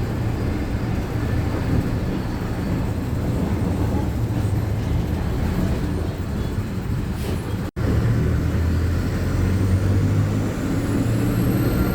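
City bus interior: a steady low engine rumble with road noise. The sound cuts out for an instant about eight seconds in, and a faint high whine rises in pitch near the end.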